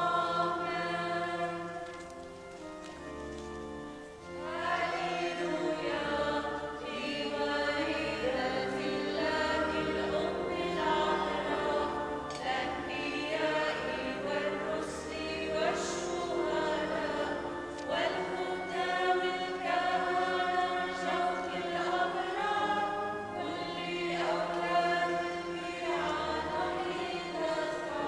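A choir singing a slow liturgical hymn with long held notes and low sustained notes underneath. It is softer for a moment about two to four seconds in and fuller from about four seconds on.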